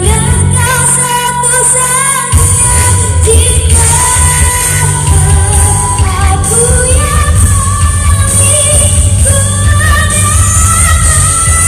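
A boy singing into a microphone over amplified backing music with a steady bass line. The bass drops out briefly and comes back about two seconds in.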